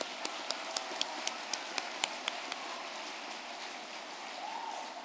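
Audience applauding, many hands clapping with a few sharp individual claps standing out, the clapping dying away gradually.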